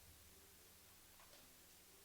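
Near silence: room tone with a faint low hum and a couple of very faint clicks about a second in.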